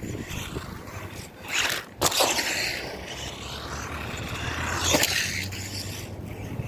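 Fayee FY03 Desert Eagle RC buggy driving on asphalt: its small electric motor and tyres give a scraping rush that swells as it passes, about two seconds in and again near five seconds, with wind on the microphone.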